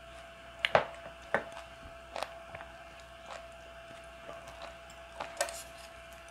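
A wooden spoon and wooden chopsticks knocking and scraping against a small bowl and a wooden tray as porridge is stirred and scooped: a handful of light, separate taps, the loudest about a second in. A faint steady high hum runs underneath.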